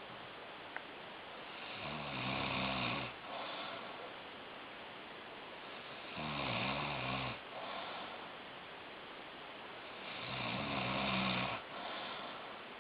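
A man snoring heavily: three long, pitched snores about four seconds apart, each lasting about a second, more like a bray than a snore.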